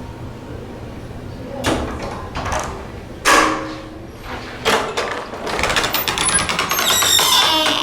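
Creaky doors on Sargent door closers and Sargent mortise locks opening and closing: a few knocks and clicks, the loudest about three seconds in, then a long creak over the last two seconds that stops suddenly.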